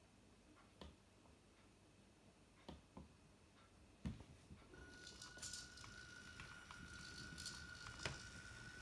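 Faint scattered ticks, then a sharp click about four seconds in, after which an RC model tractor's electric drive starts a steady, thin, high whine with fine crackling as the tractor creeps forward.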